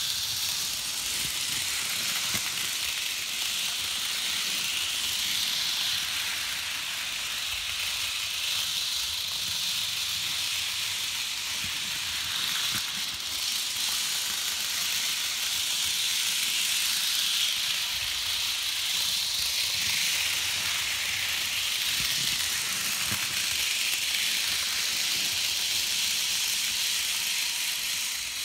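Bachmann N scale Santa Fe steam locomotive and its freight cars running round the track: a steady high hissing whir from the small motor and wheels on the rails, swelling and fading as the train goes round.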